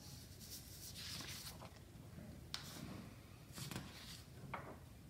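Sheets of paper being handled and slid across a desk: a soft rustle about a second in, then a few light taps and ticks.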